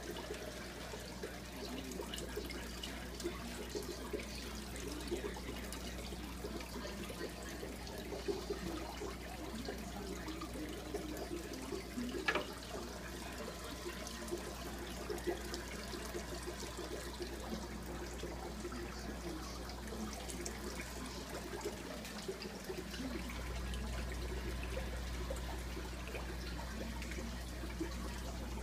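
Air-driven sponge filter bubbling in a fish tank: a continuous trickling, gurgling water sound over a steady low hum. The hum grows louder near the end, and there is one sharp click about midway.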